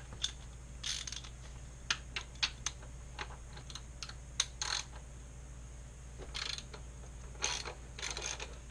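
Socket ratchet with a 17 mm socket loosening a motorcycle motor mount bolt: irregular single clicks and several short rasping runs of ratchet clicks.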